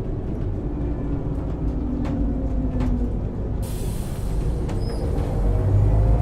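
Scania L94UB city bus's nine-litre five-cylinder diesel and ZF Ecomat 5HP600 automatic gearbox running under way: a low rumble with gliding gearbox whine tones, growing louder toward the end as the bus picks up speed. A high hiss comes in about halfway through.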